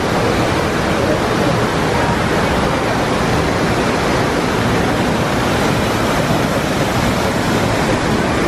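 Steady rush of falling water from man-made waterfalls, loud and even.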